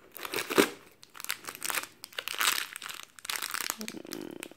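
A clear plastic sachet of loose-leaf herbal tea crinkling as it is pulled out of a cardboard advent-calendar compartment and handled, with a sharp tap about half a second in.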